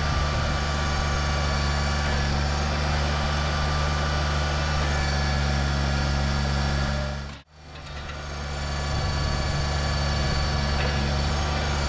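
John Deere garden tractor engine running at a steady speed while the front loader bucket is tilted with the hydraulics. The sound cuts out abruptly for a moment about seven and a half seconds in, then comes back.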